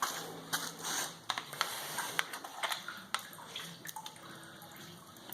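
Water dripping and splashing as a wet sawdust-and-paper pulp mixture is handled, with scattered light clicks and knocks.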